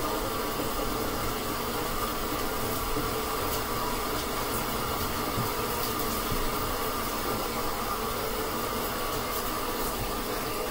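Water running steadily from a tap into a carpet cleaner's water tank as it fills.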